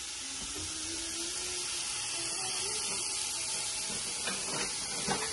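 Diced red onion sizzling in oil in a stainless steel stockpot, a steady hiss, with a faint wavering tone underneath and two light knocks near the end.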